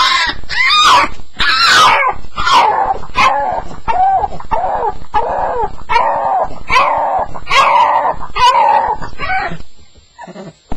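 Staffordshire bull terrier crying on its first night, a run of loud, yelping whines about twice a second that stops about nine and a half seconds in.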